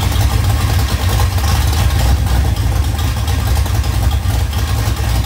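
An engine idling loudly with a deep, steady rumble.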